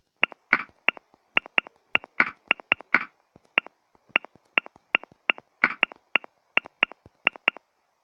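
Rapid, uneven run of short sharp clicks, about three to four a second, stopping near the end: the key-tap sounds of a smartphone's on-screen keyboard as a message is typed.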